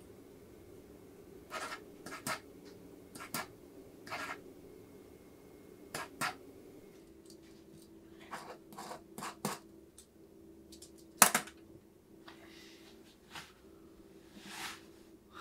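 Scattered small clicks, scratches and rustles of objects being handled, over a faint steady hum; one sharper click stands out about eleven seconds in.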